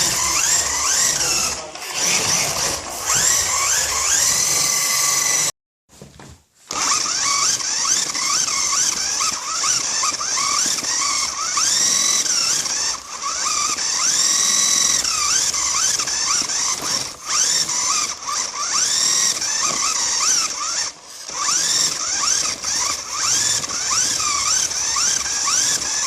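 Remote-control car being driven on plastic drift sleeves made from a Pringles tube: its electric motor and gears whine, the pitch rising and falling as the throttle is worked, over a steady high hiss. There is a short break about six seconds in.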